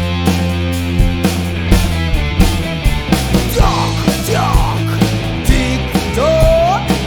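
Rock band playing an instrumental passage: steady drum hits about three a second over sustained bass and guitar chords. From about halfway through, a lead line comes in with notes that bend and glide in pitch.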